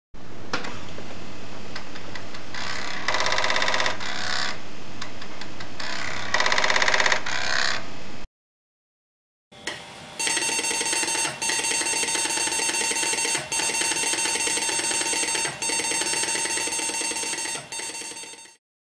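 A Commodore 1541 floppy disk drive erroring, rattling for about eight seconds, with two louder stretches in the middle. After a short silence, an Atari 800XL with its disk drive loading a disk: a steady buzzing set of tones, broken by brief dips.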